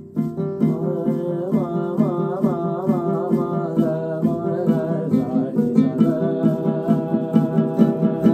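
Live acoustic music that enters abruptly: a string instrument plays sliding, bending notes over a pulsing low drone, with a regular light shaker-like rhythm on top.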